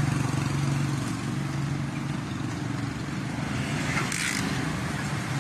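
Motorcycle engine running steadily with a low hum, with road traffic around it; a short hiss about four seconds in.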